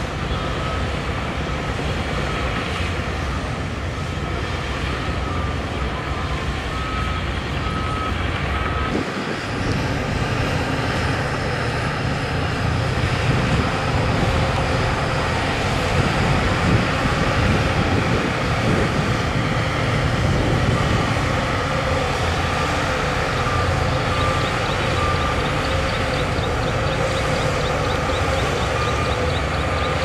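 Heavy diesel earthmoving machinery (bulldozers and dump trucks) running steadily under load. A reversing alarm beeps in short runs of repeated beeps now and then.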